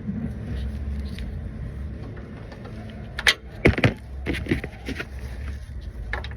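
Steady low mechanical hum from the 2009 Mercedes-Benz GL450 with its new air suspension compressor fitted, broken a little past halfway by a few sharp knocks and clatter.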